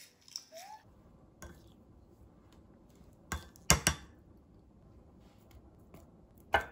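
A spoon clinking against a glass mug while scooping yogurt into it: a quick cluster of three clinks about three and a half seconds in and one more just before the end, with quiet between.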